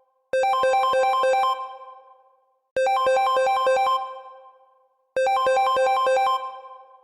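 Smartphone ringtone for an incoming call: a short phrase of quick notes on three pitches, repeated three times, each phrase fading out before the next begins.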